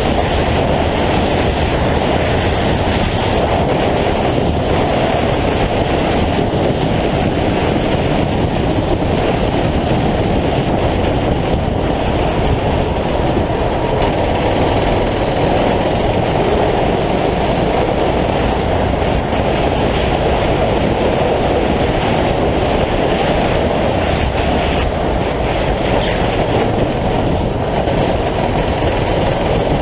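Onboard sound of a 9 hp racing kart's engine running at speed around a track, buried in a steady, loud rush of wind and road noise.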